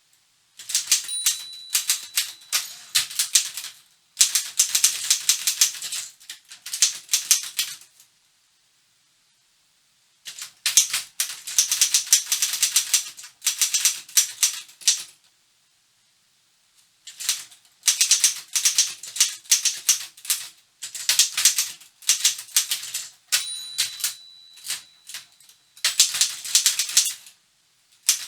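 1952 Continental Standard manual office typewriter being typed on: rapid keystrokes clacking in bursts of several seconds, with two pauses. A bell rings briefly twice, about a second in and again near the end.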